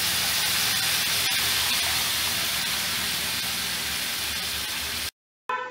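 Tamarind juice poured into hot oil with fried onions and spices, sizzling with a loud, steady hiss. The sound cuts off abruptly about five seconds in.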